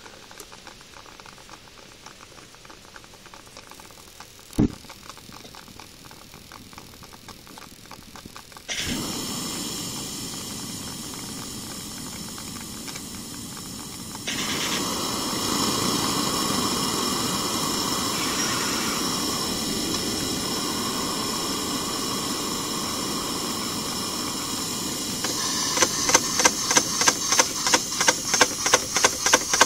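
Gas burner of a model steam boiler being lit: a single click about four and a half seconds in, then the gas comes on with a sudden steady hiss about nine seconds in, which grows louder a few seconds later as the flame takes. Near the end the burner starts to pulse rhythmically, about three beats a second.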